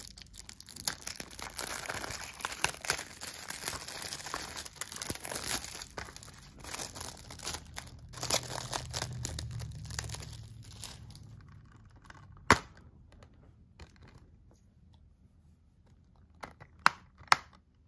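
Clear plastic shrink wrap being torn and peeled off a Blu-ray case, crinkling for about the first ten seconds. Then, after a quieter stretch, a few sharp clicks of the plastic case being handled and opened.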